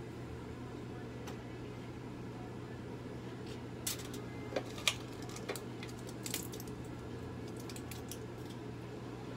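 Steady low room hum with a handful of small sharp clicks and light rattles, clustered between about four and six and a half seconds in.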